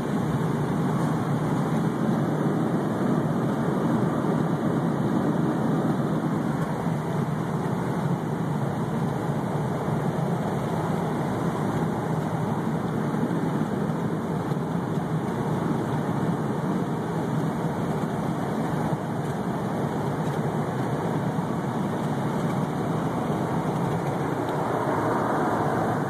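Steady road and engine noise heard from inside a moving vehicle's cabin at highway speed.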